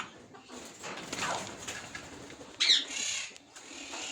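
Pet parrots calling and squawking, with a louder harsh call about two and a half seconds in.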